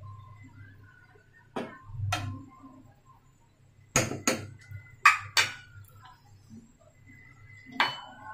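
Metal spoon and fork stirring noodles in a saucepan, clinking sharply against the pot about seven times at irregular intervals, over a faint steady low hum.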